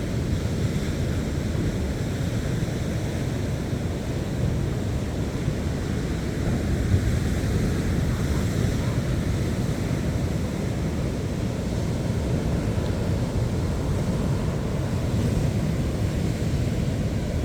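Ocean surf washing onto a sand beach, a steady rushing noise, with wind rumbling on the microphone.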